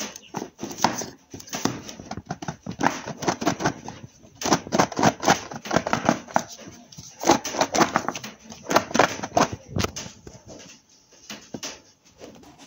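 Cardboard box and loose plastic wrapping being handled as a white earbuds box is turned over and its lid pulled off: irregular crinkling, rustling and tapping, with short pauses.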